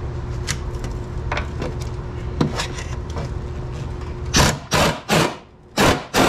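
Red power ratchet with an 18 mm swivel socket loosening a bolt in six short bursts over the last two seconds, each one loud and hissy. Before that only a steady low hum with a few light clicks.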